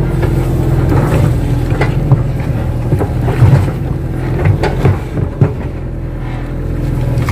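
Kato crawler excavator's diesel engine running steadily, with scattered knocks and clanks over it.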